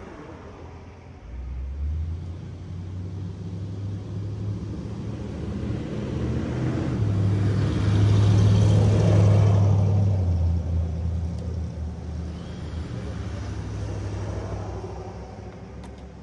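A motor vehicle's engine rumble that starts about a second and a half in, builds to its loudest around eight to ten seconds in with a wide hiss of tyres and engine, then fades away, like a vehicle passing close by.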